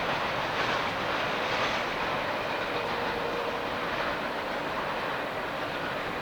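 Intermodal freight train cars rolling past at speed: a steady rumble and rattle of steel wheels on the rails.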